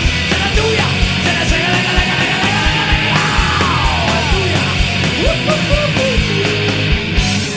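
Live indie-rock band playing loudly, with a steady driving kick-drum beat under amplified guitars and bass, and wavering pitched lines above that may be shouted vocals.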